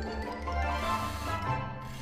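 Background music with several instruments playing.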